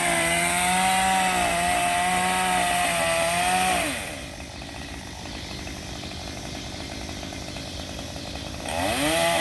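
Two-stroke chainsaw running at high revs, dropping to idle about four seconds in, then revved up again near the end.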